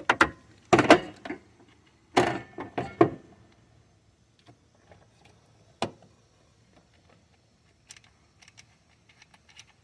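Ratchet and socket clicking and clinking on metal as a rusted knock-sensor mounting nut is backed off: a few loud clanks in the first three seconds, a single sharp click near six seconds, then faint scattered ticks.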